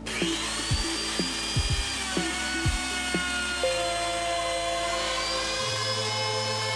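Electric router starting up with a quick rise in pitch into a high, steady whine as it trims the red oak veneer flush along the box's top edge. The pitch sags a little as the bit cuts and climbs back near the end.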